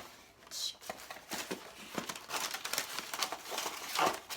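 Packaging being handled as a cardboard box is opened: irregular rustling and crinkling with scattered knocks, and a brief tearing hiss under a second in.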